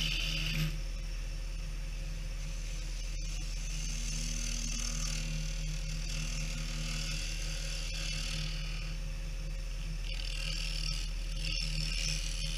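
Wood lathe running steadily while a hand-held turning tool cuts a small spinning wooden workpiece: a hiss of cutting wood that comes and goes as the tool is worked, over the lathe's steady hum.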